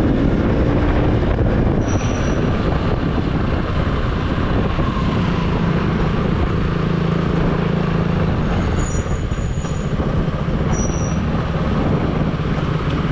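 Wind rushing over the microphone of a moving motorcycle, with the KTM Duke 200's single-cylinder engine running steadily underneath at road speed.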